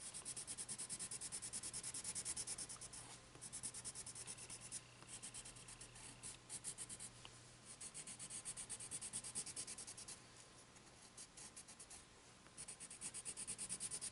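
Colorless blender pencil rubbing over coloured-pencil layers on paper in quick back-and-forth strokes, blending the colours together; the scratching comes in several runs with short pauses between them.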